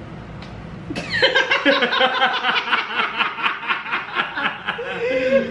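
A person laughing, a long high-pitched ha-ha-ha in quick pulses, starting about a second in.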